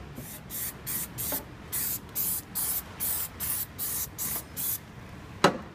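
Aerosol can of trim adhesive spraying onto rubbery underlayment in about a dozen short hissing spurts, roughly two or three a second, followed by a single sharp knock about five and a half seconds in.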